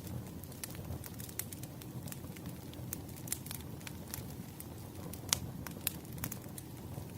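Campfire crackling: irregular sharp pops and snaps over a low, steady rumble, with one louder pop about five seconds in.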